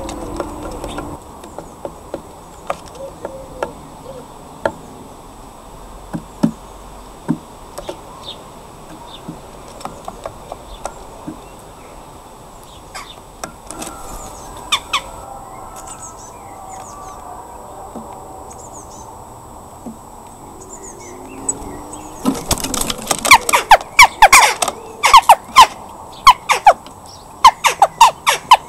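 Jackdaw pecking at food on a wooden feeder post: a fast run of loud, sharp taps over the last six seconds or so. Before that come scattered softer taps and faint small-bird chirps.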